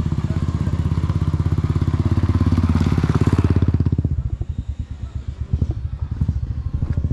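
Motorcycle engine running steadily on a gravel track, heard from the rider's seat. About four seconds in, the engine eases off and its beat turns weaker and uneven for a few seconds, then picks up again near the end.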